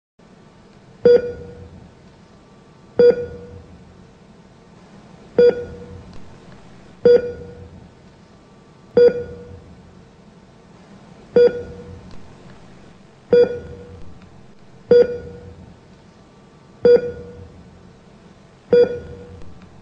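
A single pitched note sounds ten times at uneven intervals of about two seconds. Each note is sharp at the start and dies away within about a second, like a beep or a struck key.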